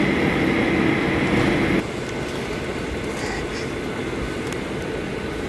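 Airliner cabin noise while taxiing after landing: a steady rush of the jet engines and air, with a low hum and a higher whine. Under two seconds in it drops abruptly to a quieter steady rush.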